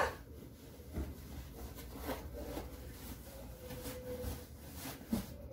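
Faint rustling and brushing of bedsheet fabric as it is pushed and tucked in under a mattress, with a few soft taps.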